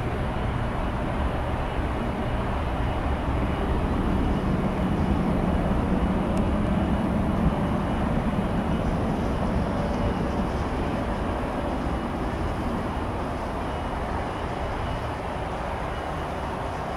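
Jet engines of a twin-engine widebody airliner climbing away after takeoff: a steady rumble that swells a little a few seconds in, then slowly fades as the jet recedes.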